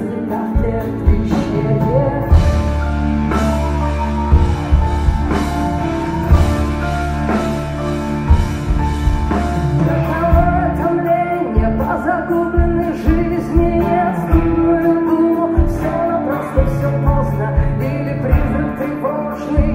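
Live band music: strummed acoustic guitar over bass and drums, with a woman singing.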